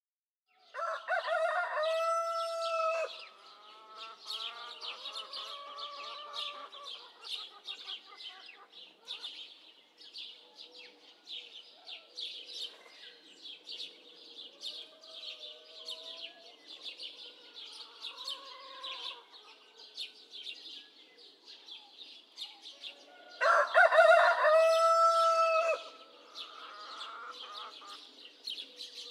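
A flock of chickens: a rooster crows loudly twice, about a second in and again near the end, over scattered clucking and a constant chatter of high chirps.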